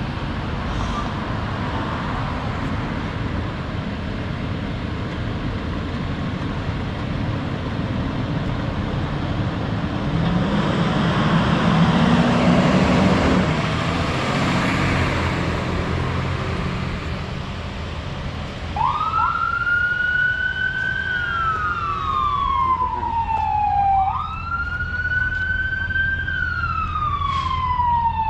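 Fire engine's diesel engine running, getting louder and revving up as the truck passes close and pulls away. About two-thirds of the way in, its siren starts in a wail, rising quickly and falling slowly, about once every five seconds.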